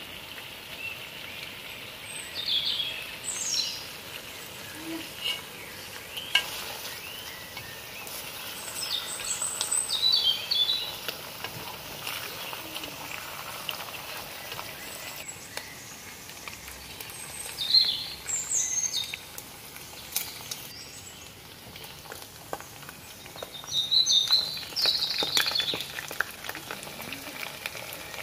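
Lamb ribs and meat frying in their own juices in a deep nonstick pan, sizzling steadily. Several times, louder scraping and clattering comes as the meat is turned with tongs.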